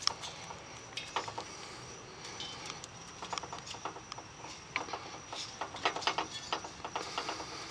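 Scattered light clicks and knocks at irregular intervals as a gas grill is handled and readied for lighting, with a faint steady high-pitched hum behind them.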